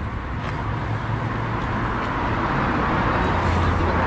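Road traffic noise, a steady rush with a low engine hum, growing louder near the end as a vehicle passes.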